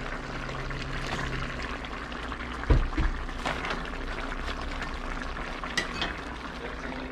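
Liquid poured from a bowl into a pan of crabs and bok choy on the stove, a steady splashing hiss, with two sharp knocks close together about three seconds in.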